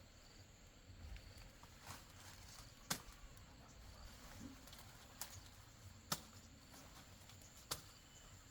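A few sharp, separate knocks, about five spread unevenly over several seconds, over a faint steady background.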